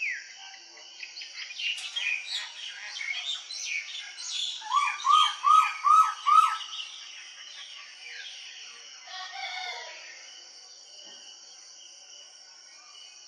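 Morning chorus of several songbirds chirping and warbling over a steady high hiss. The loudest call, about midway, is one bird repeating five quick rising-and-falling whistled notes. The calls thin out over the last few seconds.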